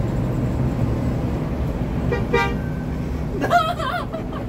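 Low, steady drone of a bus engine and road noise while on the move. About two seconds in, a vehicle horn gives one short toot.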